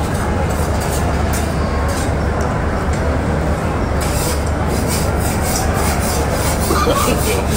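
Busy restaurant dining-room ambience: a steady murmur of many diners' chatter over a low ventilation hum. Light clicks of dishes and utensils come in the second half.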